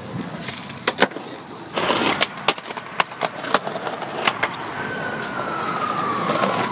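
Skateboard wheels rolling on rough asphalt, with a string of sharp clacks from the board hitting the ground. In the second half a thin tone falls slowly in pitch.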